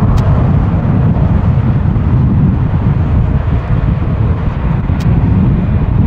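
Jet airliner engine noise: a loud, deep, steady rumble.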